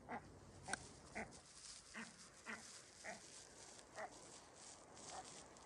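A faint series of short animal calls, about nine of them, each a brief pitched call repeated roughly every half second.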